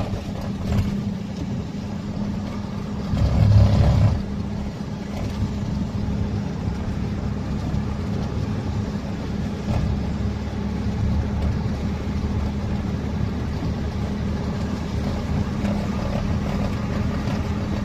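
UAZ vehicle's engine running steadily under way, a constant low hum. About three seconds in there is a louder swell lasting about a second.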